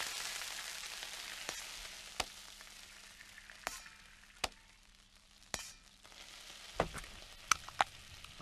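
Pancake batter sizzling in a frying pan, the hiss fading away over several seconds. Sharp light clicks come now and then, with a low thump and a few more clicks near the end.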